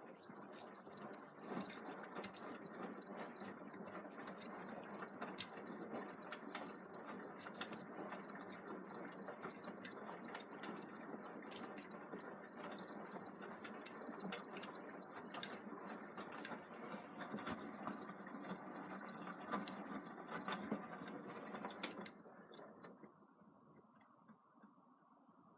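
Beko WM74165W washing machine drum turning in the wash phase: a steady churning of wet laundry with many sharp clicks. It stops abruptly about three-quarters of the way through as the drum pauses.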